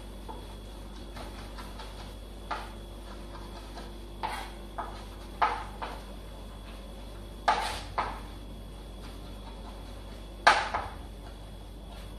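Chef's knife chopping cooked turnip greens (cime di rapa) on a cutting board: irregular knocks of the blade striking the board, often in quick pairs, the loudest about ten seconds in.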